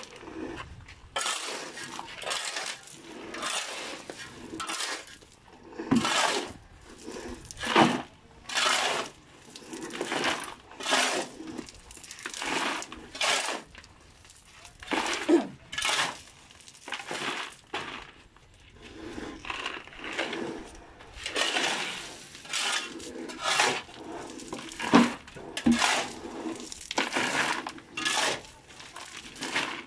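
A steel shovel repeatedly scraping into a pile of gravel and sand, with stones clattering as each scoop is tipped into plastic buckets, stroke after stroke in an uneven rhythm.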